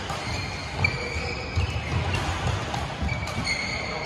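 Badminton rally on an indoor court: several sharp racket hits on the shuttlecock, each under a second apart, with squeaks of shoes on the court mat and the thud of footfalls.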